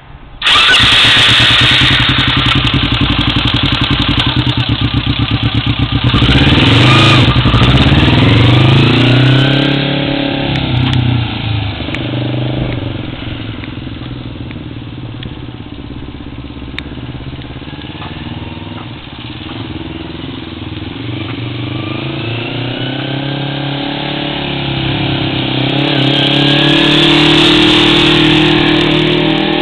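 Kawasaki sport motorcycle's engine pulling away in first gear, its pitch rising and falling as the rider speeds up and eases off. It grows quieter in the middle as the bike rides off down the street, then louder again near the end as it comes back past.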